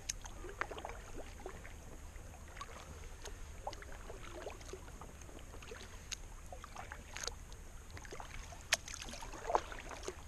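Kayak paddle working in calm water: scattered drips and small splashes, with a few sharp clicks, loudest as a click and a splash near the end.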